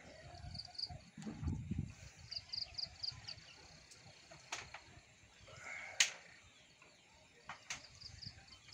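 Rural outdoor ambience: a small creature's high-pitched chirping comes in short runs of quick, evenly spaced pulses. A few sharp clicks sound over it, the loudest about six seconds in, with a brief low rumble in the first two seconds.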